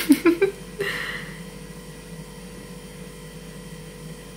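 A few quick clicks and taps of a nail-polish brush against a small plastic pot as clear polish and glitter are stirred together, then a low steady hum.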